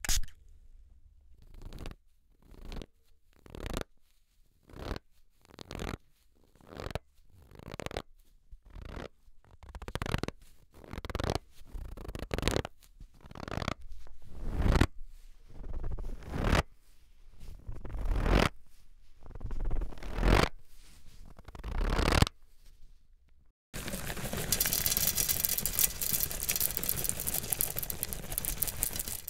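A spray bottle spritzes once or twice. Then a cloth bag of starch is squeezed again and again, a crisp crunch about twice a second, like footsteps in snow, growing louder. About 24 seconds in, sunflower seeds are poured from a packet onto a glass tabletop: a continuous rattling patter.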